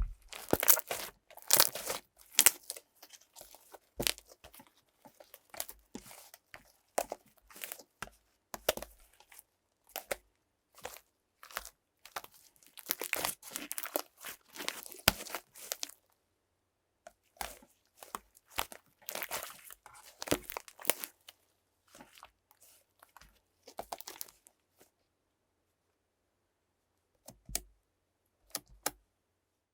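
Slime being squished and stretched by hand, giving irregular bursts of crackling and popping with short silent pauses between them.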